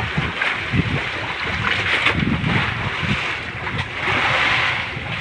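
Wind on the microphone and sea water washing against a fishing boat, with a few soft knocks and a hiss that swells about four seconds in.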